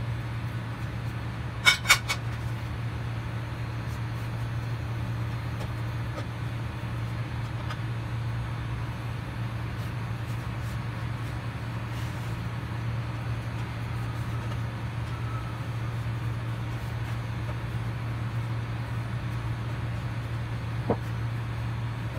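Two sharp knocks on a wooden pastry board about two seconds in and a lighter one near the end as dough is handled on it, over a steady low hum.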